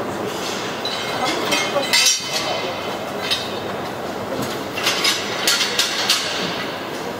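Several sharp metal clanks and clinks of steel railway bogies and tools, scattered irregularly over a steady workshop din, during a bogie exchange that changes the coaches' wheels for a different track gauge.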